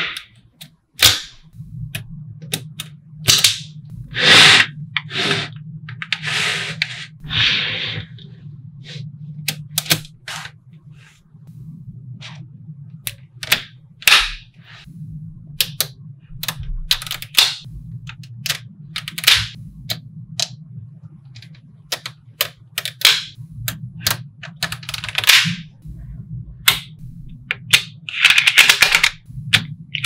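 Small magnetic balls clicking sharply as they snap together, in irregular single clicks and short rattling runs as strings of balls are pressed onto a magnetic-ball model, over a faint low hum.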